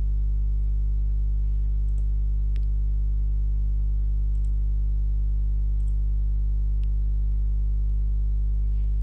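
Steady electrical mains hum: a loud low buzz with a stack of overtones, unchanging throughout. Two faint clicks sound, one about two and a half seconds in and one near seven seconds.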